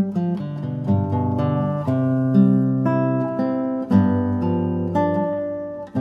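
Background music played on acoustic guitar: plucked chords that change about once a second, dipping briefly in level just before the end.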